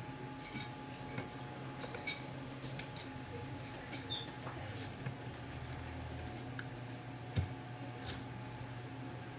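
Scattered light clicks and taps of a small screwdriver and plastic parts being handled while screws are taken out of a small speaker's casing, over a steady low hum.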